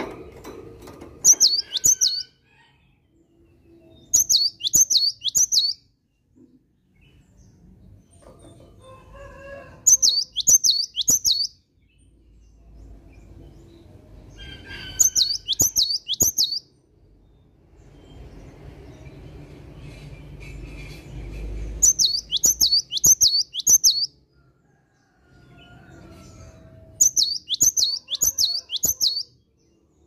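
Cinereous tit singing six short phrases, each a quick run of three to five repeated high whistled notes lasting a second or two, with pauses of a few seconds between phrases. Faint clicks and a low rumble sit in the gaps.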